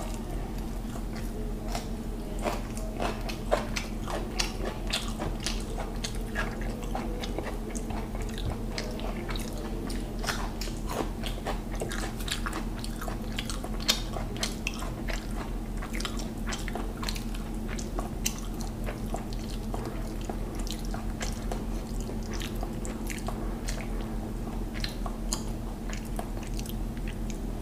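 Close-up chewing of mutton biryani eaten by hand: many short, wet mouth clicks, over a steady low hum.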